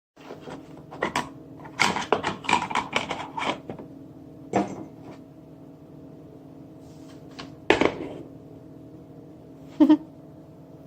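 A steady electrical hum from a kitchen appliance runs under quick clattering and knocking in the first few seconds, then single sharp knocks about four and a half, eight and ten seconds in.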